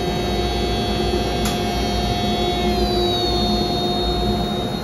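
ShopBot CNC router's spindle running with a steady whine as the bit cuts a wooden board; its high tones dip slightly in pitch about three seconds in. A brief click about a second and a half in.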